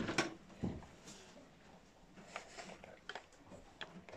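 A few faint, scattered knocks and rustles of a person moving about close by in a straw-bedded stable, with a dull thump under a second in.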